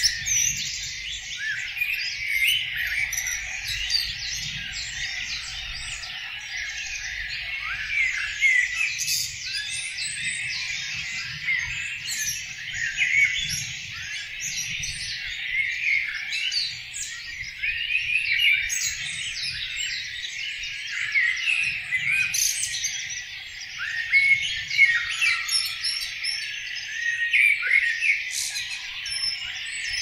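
Spring dawn chorus of many songbirds singing at once: a dense, continuous mix of overlapping chirps, trills and song phrases.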